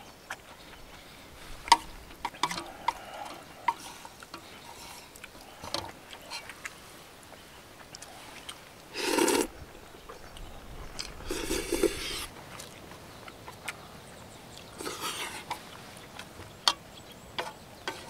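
Eating sounds from a bowl of beef-brisket doenjang noodle soup: scattered light clicks of utensils, with three longer slurps about nine, eleven and fifteen seconds in.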